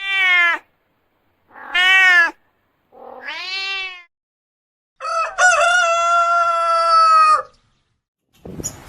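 Cat meowing: three short meows that rise and fall in pitch, then one long, drawn-out cry held on a steady pitch.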